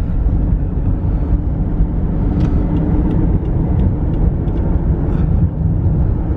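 Car driving: a steady, loud low rumble of engine and road noise.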